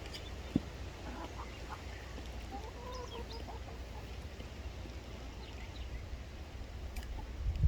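Chickens clucking softly, a scatter of short calls mostly in the first half, over a steady low rumble, with one sharp click just after the start.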